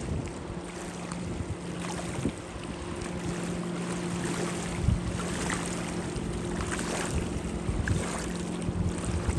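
Motorboat engine droning steadily as the speedboat runs across the water, with wind on the microphone and water splashing.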